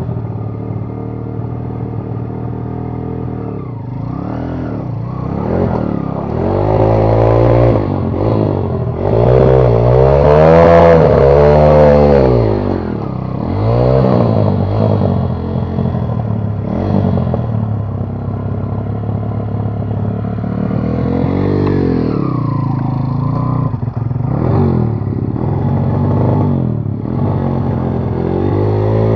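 Enduro motorcycle engine revved hard again and again, its pitch surging up and falling back several times, loudest about ten seconds in, as the bike is ridden through the crossing.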